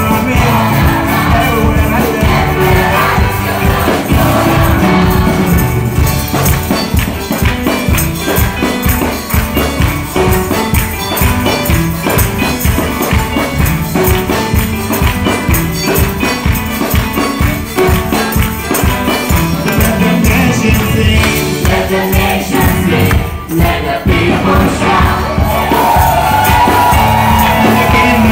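Gospel music: a choir singing over a steady beat, with tambourines shaking throughout.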